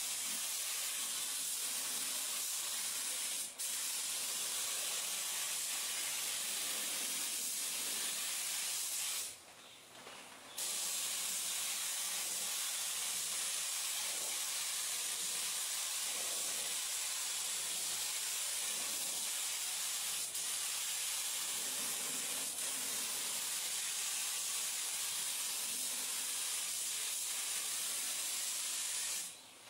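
Gravity-feed paint spray gun hissing steadily with compressed air as it sprays paint. The air breaks off for an instant just under four seconds in, stops for about a second and a half around nine seconds in, and cuts off again just before the end.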